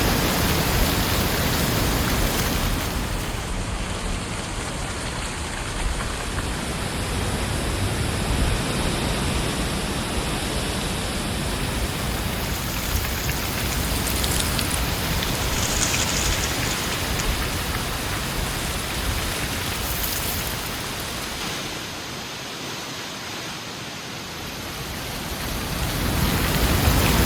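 Heavy wind blowing steadily, easing somewhat about two-thirds of the way through and rising again in a gust near the end.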